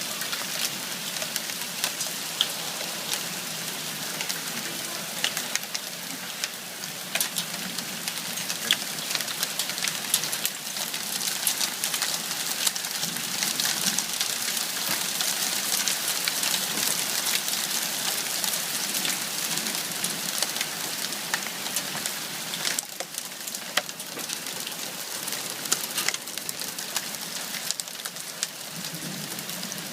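Rain and hail falling hard: a steady dense hiss with many sharp ticks of individual strikes throughout.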